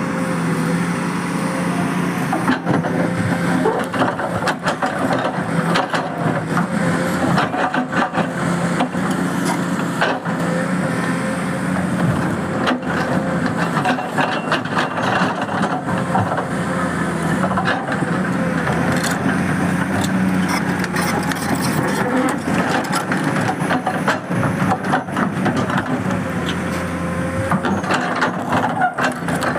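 Excavator's diesel engine running steadily under load, with frequent knocks, clanks and scrapes of the bucket working against rock.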